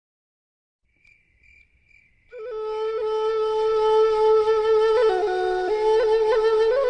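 A Balinese suling (bamboo end-blown flute) comes in about two seconds in with a long held note. From about five seconds in it moves into a slow melody with quick grace-note flicks between notes.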